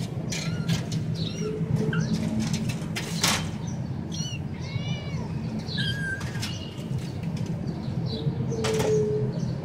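Kittens scrambling and clawing at a wire-mesh cage, the mesh rattling and clicking, with a few short mews from the cats in between and a longer meow near the end. A steady low hum runs underneath.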